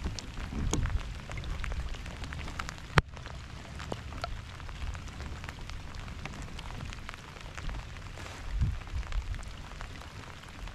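Steady rain falling, with close drops ticking sharply at irregular moments and one louder tick about three seconds in. Low rumbles come near the start and again about eight and a half seconds in.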